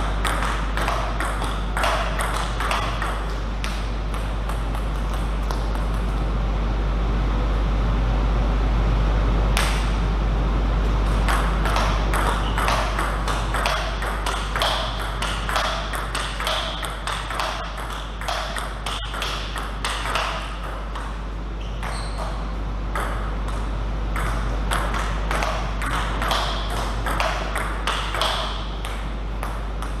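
Table tennis ball knocking sharply off the bats and the table in quick rallies, clusters of clicks with pauses between points, over a steady low hum.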